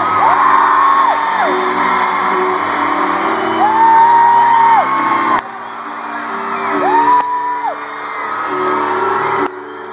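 Live arena concert sound: sustained keyboard chords with long, high held vocal notes over them, and the crowd whooping. The loudness drops suddenly about five seconds in and again near the end.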